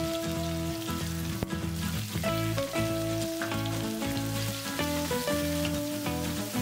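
Sliced onions and shallots sizzling in hot coconut oil in a wok as they are stirred, under background music with a sequence of changing notes.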